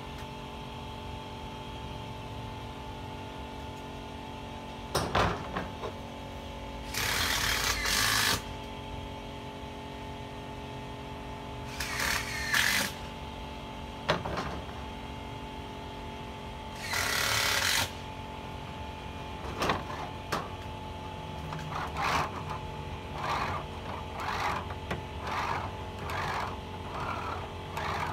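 Wuko hand roller bender run back and forth along the edge of a steel roofing panel, a short rolling scrape about once a second in the last third. Earlier come a few louder scrapes of about a second each as the sheet metal is handled, over a steady background hum.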